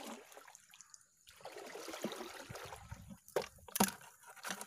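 Water splashing and trickling as a bintol crab lift net is pulled up through shallow creek water, with water streaming off the mesh and a few sharper splashes near the end.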